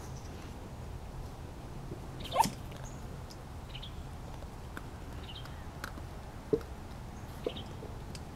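Seven-week-old puppies yelping: one short, loud yelp rising in pitch about two seconds in, and two brief squeaks later. A few faint clicks come in between.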